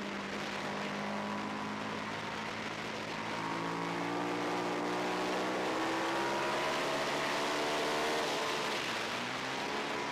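Twin-cylinder race motorcycle engine heard onboard over a steady rush of wind. The engine note holds fairly level at first, then rises steadily under acceleration from about four seconds in, and drops suddenly near the end.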